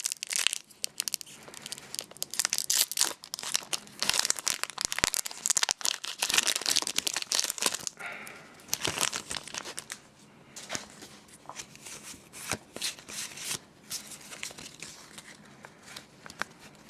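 Foil wrapper of a Pokémon EX Deoxys booster pack being torn open and crinkled: dense crackling and tearing for the first half, then sparser, quieter rustles and crinkles from about ten seconds in.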